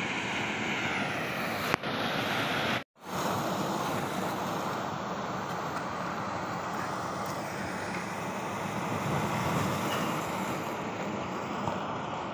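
Steady noise of ocean surf breaking against a rock jetty. The sound cuts out completely for a moment about three seconds in, then returns.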